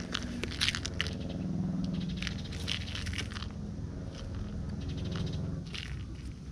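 Tabby cat biting and chewing a toy mouse close to the microphone: bursts of crunchy, crackling clicks and grass rustling, with a low rumble underneath.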